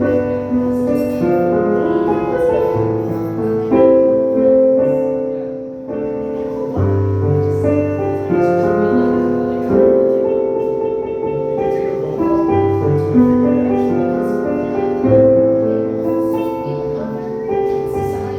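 Solo piano playing slow sustained chords, with a low bass note struck every few seconds.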